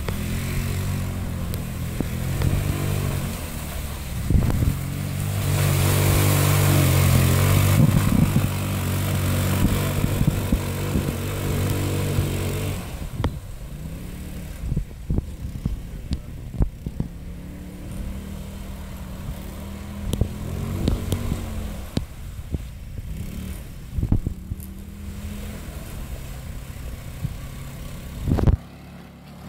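150cc go-kart engine running under hard throttle for several seconds, then quieter and lower from about halfway through.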